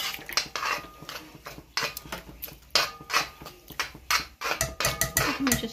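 Metal spoon scraping and knocking against a heavy black wok while stirring ground beef: a quick, irregular run of scrapes and clanks, several a second, some with a brief metallic ring.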